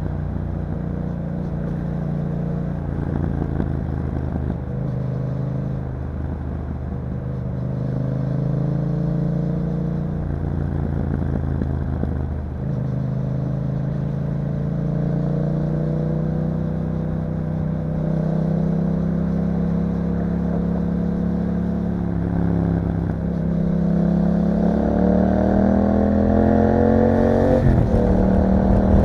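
2021 Yamaha MT-07's parallel-twin engine through an Akrapovic exhaust, heard while riding, its note rising and falling with the throttle. Near the end it climbs steadily in pitch for several seconds, then drops abruptly.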